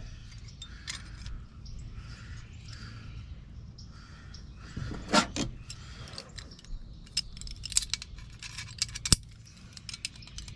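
Small metal parts and pliers clinking and clicking while a mortise lock's bent arm is worked on, with a louder clank about five seconds in and a sharp click near the end.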